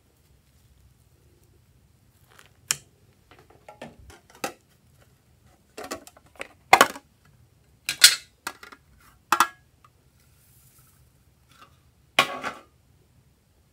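Hard plastic containers and a nail polish bottle clacking and tapping against a plastic bowl as add-ins are emptied into slime. A string of sharp knocks comes in small clusters, loudest in the middle, with one more short clatter near the end.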